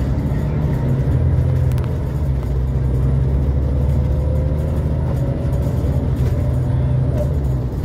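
Scania L94UA articulated bus's diesel engine running steadily under way, heard from inside the cabin. A faint whine rises slowly in pitch through the middle.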